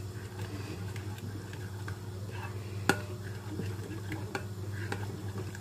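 A spoon stirring a wet yogurt-and-spice marinade in a glass mixing bowl: soft scraping and small clicks against the glass, with one sharper click about three seconds in, over a steady low hum.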